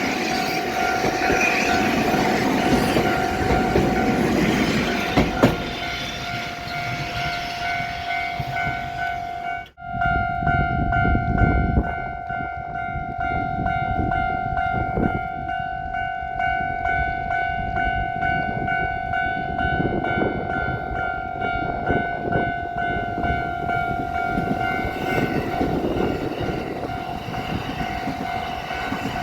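Japanese level-crossing warning bells ringing with a steady, evenly repeating electronic ding while a train runs past over the rails. The sound drops out abruptly about ten seconds in, then the bells carry on with a brief rumble of train wheels.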